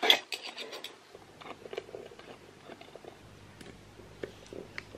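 Hand screwdriver driving screws into metal drawer runners on a flat-pack drawer panel: small metal clicks, scrapes and rattles, busiest in the first second, then sparser.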